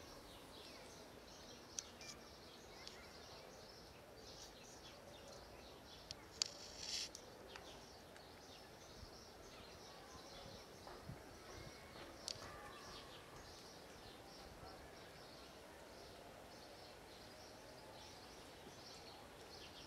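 Near silence: faint outdoor ambience with scattered short, high chirps and clicks, a brief cluster of them about six seconds in.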